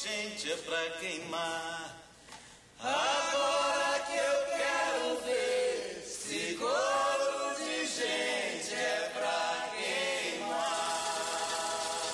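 Men singing a slow song in long, drawn-out phrases, with a brief pause about two seconds in before the singing picks up again.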